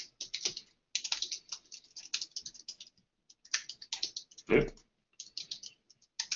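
Fast typing on a computer keyboard, bursts of key clicks with short pauses between them, as code is entered. About four and a half seconds in there is one louder, duller thump.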